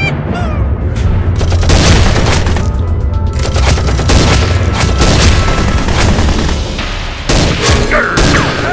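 Gunshot sound effects dubbed over the toy blasters: many sharp shots at irregular spacing, over action music with a heavy steady bass.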